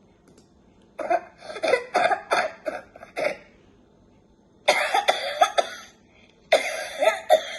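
A child's wet, productive cough, bringing up phlegm. The coughs come in three runs of several quick coughs each, with short pauses between the runs.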